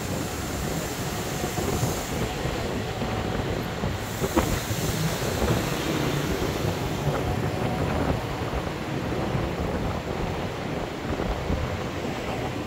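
Double-decker tour bus in motion, heard from its upper deck: a steady low rumble of engine and road noise.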